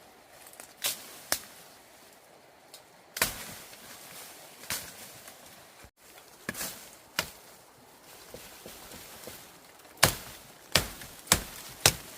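Irregular sharp strikes of a blade chopping into bamboo, about ten blows in all. The hardest blows come in a quick run of four near the end.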